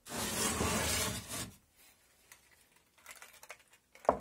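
A wooden board scraping as it is slid across a wooden workbench, a rough noise lasting about a second and a half. A sharp knock follows near the end.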